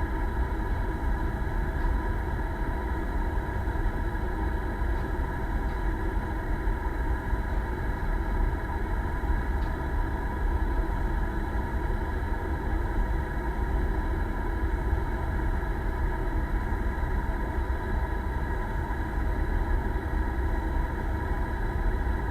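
Fishing boat's engine running steadily: a constant low rumble with an even hum above it and no change in speed.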